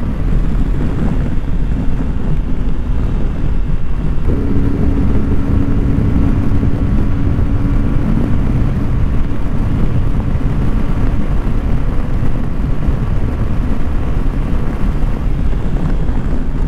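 Heavy wind rush on the microphone at about 140 km/h, over the Suzuki V-Strom 250 SX's single-cylinder engine running flat out near top speed. A steady hum stands out from about four to eight seconds in.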